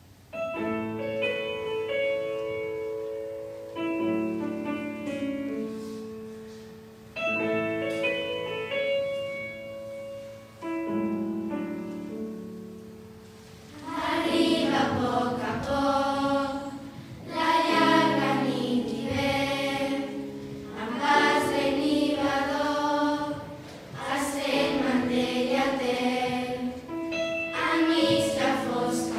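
Instrumental introduction of held chords, each struck and then fading, with a new one about every three and a half seconds. A choir of young girls then comes in about fourteen seconds in, singing a Christmas carol over the accompaniment.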